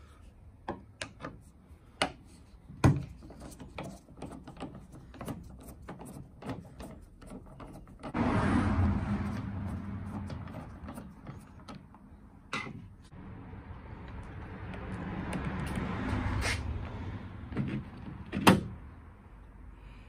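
A screwdriver working the handle's retaining screw through the access hole in a VW Touran's door edge, with metal-and-plastic door handle parts being handled. There are many small clicks and knocks, then longer stretches of scraping and rattling, and a sharp knock near the end.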